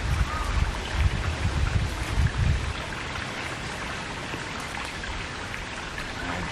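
Steady rain falling, an even hiss, with low rumbling on the microphone that dies away about three seconds in.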